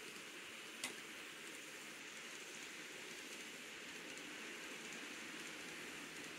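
Kato N scale F7 diesel locomotive pulling a string of freight cars over Kato Unitrack: a faint, steady running noise of motor and wheels on the rails, running smoothly. One sharp click comes about a second in.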